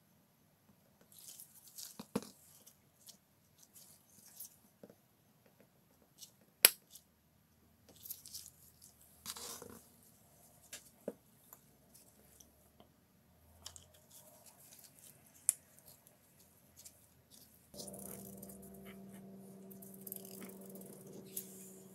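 Small clicks, taps and rustles of gloved hands handling a drill's metal gear housing and squeezing a plastic grease bottle into it, with one sharp click about seven seconds in the loudest. A steady low hum with a few pitched tones starts near the end.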